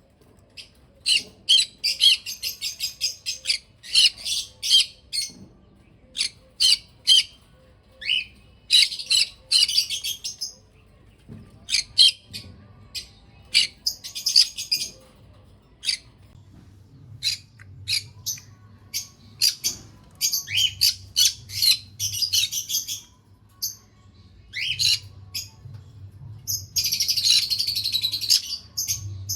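Small pet parrots chirping: many short, sharp, high-pitched chirps, broken by several bursts of rapid chattering, the longest near the end.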